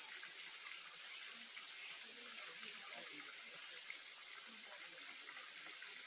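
Mountain stream flowing steadily over rocks, a constant rush of water, with a steady high-pitched insect drone.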